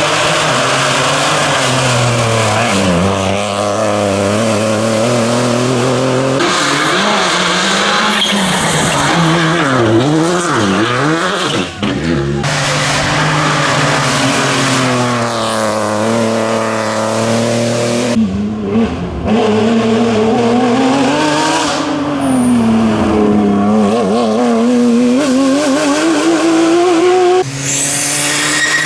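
Rally cars driven hard on a stage, one after another: engines revving up and dropping back through gear changes as they pass, with the sound changing abruptly between cars a few times.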